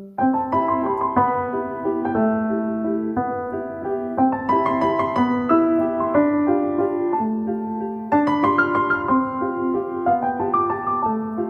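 Background piano music: a gentle melody of struck notes over steady lower notes, with a fresh phrase beginning about eight seconds in.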